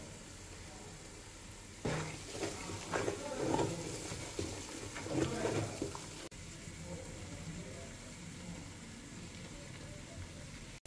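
Pepper and tomato stew base frying in oil in a metal pot, with a steady sizzle. For a few seconds in the middle there are irregular bursts of a wooden spatula scraping and stirring through it.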